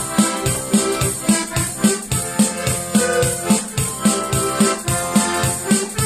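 Piano accordion playing a tune with full sustained chords over a steady bass beat, about three beats a second.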